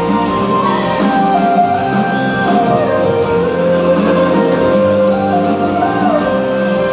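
Music for a stage dance: a held melody that slides up and down between notes over a steady accompaniment.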